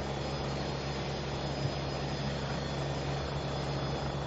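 Helicopter engine and rotor running steadily close by: a constant drone with a faint high whine above it.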